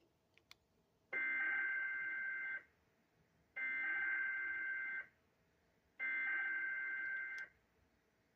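NOAA Weather Radio SAME digital header: three bursts of two-tone data warble, each about a second and a half long with about a second between them. It is the coded signal that opens a new EAS severe thunderstorm warning on KHB59.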